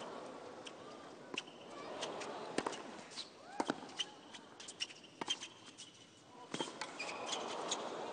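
Quiet tennis stadium between points: a low crowd murmur with scattered sharp knocks, such as a tennis ball being bounced on the hard court, and a few brief high squeaks like shoe soles on the court.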